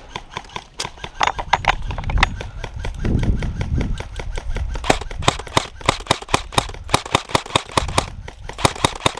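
Airsoft gun firing repeated sharp shots, scattered at first, then a steady quick run of about five a second through the second half.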